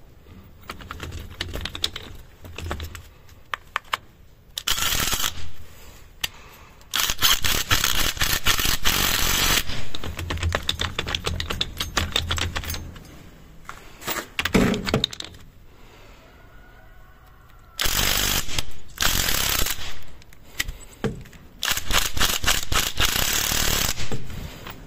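Yato YT-82805 cordless impact wrench (300 Nm, 4 Ah battery) hammering on a seized suspension nut in several bursts of one to a few seconds, with short pauses between them: a rapid rattling of impacts.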